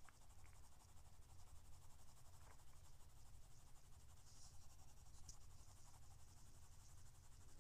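Faint scratching of a graphite pencil shading on drawing paper, with a few light ticks.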